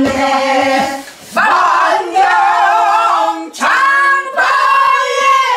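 A woman singing a Korean folk song without accompaniment, in three phrases of long, wavering held notes with short breaths between them about one and three and a half seconds in.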